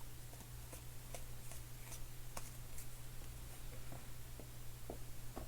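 Faint light clicks and taps of trading cards and packs being handled and shuffled on a table, scattered irregularly over a steady low hum.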